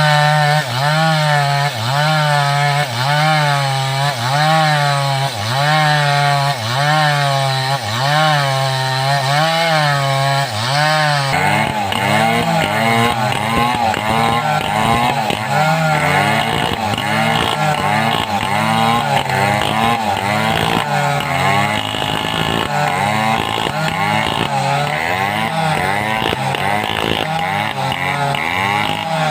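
Home-assembled two-stroke chainsaw cutting through wood, its engine pitch rising and falling about once a second as it loads and unloads in the cut. About eleven seconds in, the rise and fall becomes quicker and more uneven.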